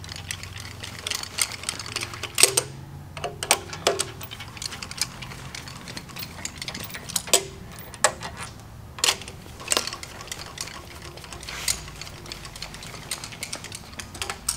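Hand ratchet clicking in quick runs, with sharp metal clinks, as nuts are backed off the cylinder-head studs of a 440 big-block V8.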